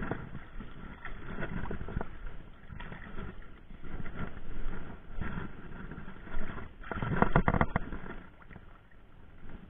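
Water splashing and lapping against a small wooden outrigger canoe as it is handled and pushed off, with irregular knocks from the hull and outrigger; a louder burst of knocks and splashing comes about seven seconds in.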